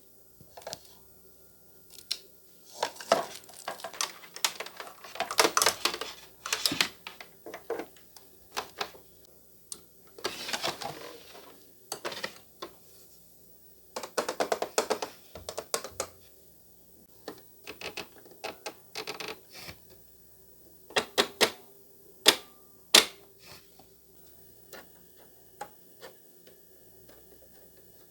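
Irregular clicks, taps and clatter of small objects being handled, with a few short rustling or scraping bursts, over a faint steady hum.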